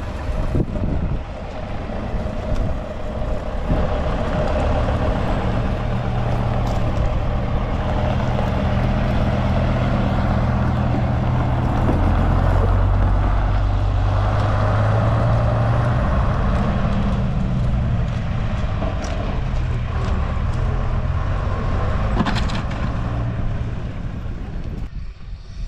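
Bus engine running steadily, growing louder in the middle and dropping away near the end.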